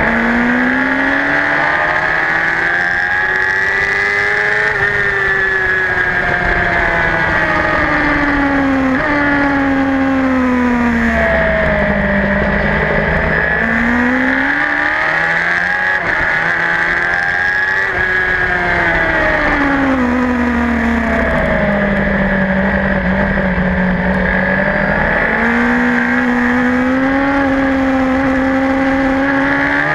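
Superbike engine at race pace, heard from on the bike. Its pitch climbs under acceleration, then falls, sometimes smoothly and sometimes in sudden steps, as the rider shifts gears and brakes for corners, several times over.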